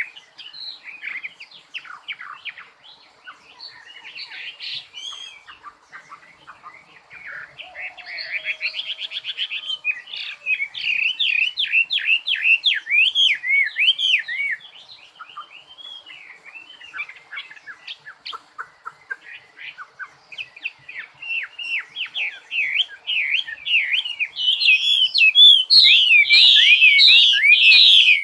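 Songbird singing: a long, unbroken run of quick chirps and short up-and-down whistled notes, quieter through the middle and loudest in the last few seconds.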